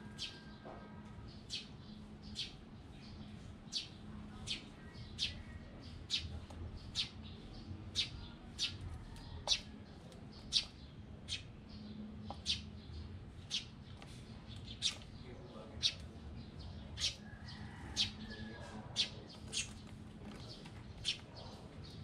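Sparrows chirping: a steady run of short, sharp, high chirps, about one or two a second.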